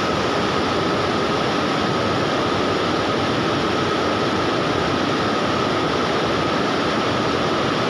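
Steady rush of river water pouring over a low concrete weir, an even unbroken roar of falling water.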